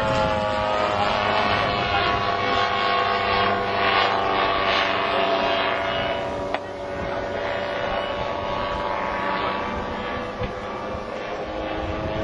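Radio-controlled scale model of a Dornier Do 335 flying past, its engine drone steady with the pitch sagging slightly and then rising again near the end. A single sharp click about six and a half seconds in.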